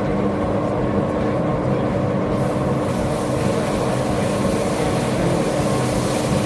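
Steady machine hum with one constant tone under the general din of a busy exhibition hall, with no separate punching strokes; a higher hiss comes up about two and a half seconds in.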